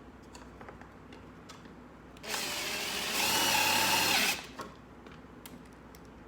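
Drill driving a self-tapping screw to fix a pipe to a plastic bucket: a motor run of about two seconds that speeds up partway through, then stops. Light handling clicks before and after.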